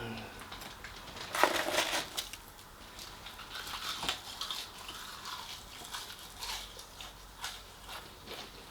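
Biting and chewing crispy fried food close to the microphone. There is a loud crunch about a second and a half in, then quieter, irregular crunches of chewing.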